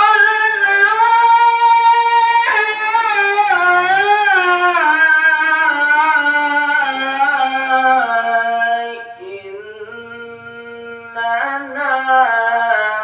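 A qari's voice reciting the Qur'an in the melodic tilawah style, holding long ornamented notes. The phrase sinks gradually in pitch and fades about eight or nine seconds in, then a new phrase rises near the end.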